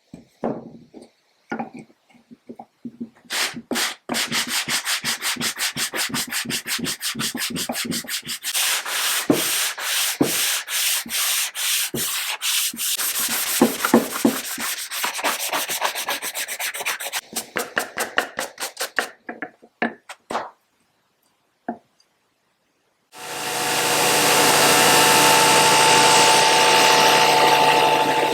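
Wood being sanded by hand in fast, even back-and-forth strokes, about four to five a second, which stop near the two-thirds mark. About five seconds before the end a power tool starts and runs steadily.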